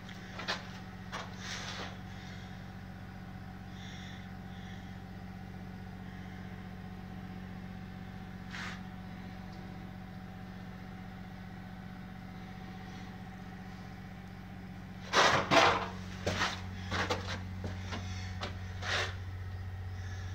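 A steady low hum with a few knocks and clatters near the start and a loud cluster of knocks about fifteen seconds in, after which the hum grows deeper and stronger.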